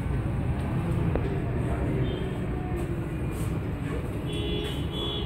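Diesel generator engine running with a steady low rumble.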